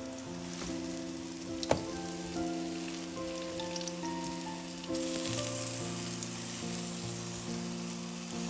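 Soft background music of held notes over a steady crackling hiss, with a single sharp click about two seconds in.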